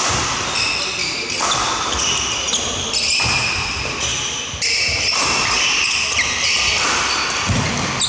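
Badminton doubles rally: rackets striking the shuttlecock in repeated sharp cracks at an irregular pace, among shoe squeaks and footsteps on the wooden court floor.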